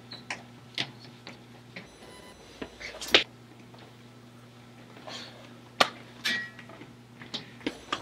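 A string of short, sharp clicks and light knocks, some about half a second apart, the loudest about three seconds in and again near six seconds, over a steady low hum.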